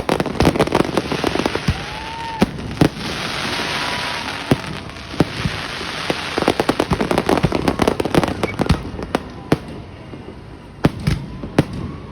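Fireworks going off: a rapid series of sharp bangs with crackling in between, and a couple of short whistles.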